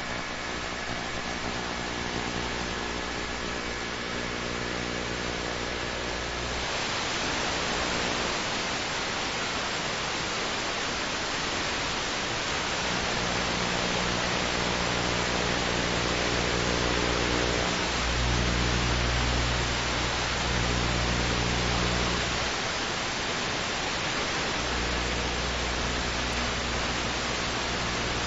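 Helicopter noise: a steady loud rush with a low droning hum underneath, turning brighter about six seconds in.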